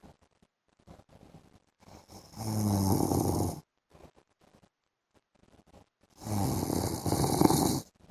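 A man snoring in his sleep: two long snores about four seconds apart, each lasting about a second and a half, with low, pitched rumbles.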